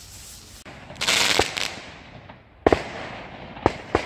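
Homemade firework going off: a short rushing hiss with cracks about a second in, then three sharp bangs, the last two in quick succession near the end.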